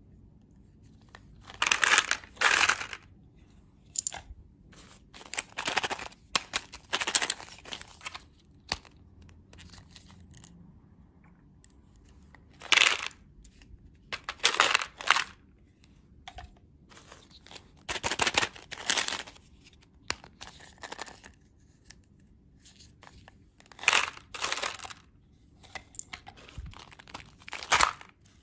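Candy wrappers being torn open and crinkled, in repeated short bursts of tearing and rustling with pauses between them.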